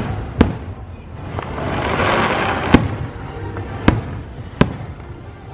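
Aerial firework shells bursting overhead: four sharp bangs spaced unevenly over a few seconds, with a swell of hissing noise between the first two.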